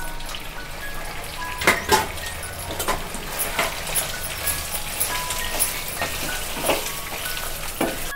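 A wooden spatula stirs ground ivy-gourd (dondakaya) chutney into a hot tempering of oil, mustard seeds and curry leaves in a nonstick pan. Low sizzling runs under the stirring, and the spatula scrapes and knocks against the pan several times, loudest a couple of seconds in.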